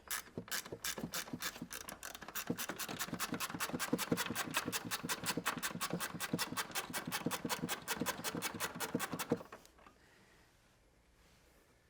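Screwdriver ratcheting in a fast, even run of clicks, several a second, as screws are undone; it stops suddenly about nine and a half seconds in.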